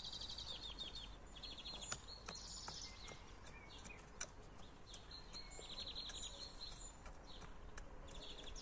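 Quiet garden ambience with high-pitched chirping trills, each about half a second long, coming again and again, and a couple of faint clicks.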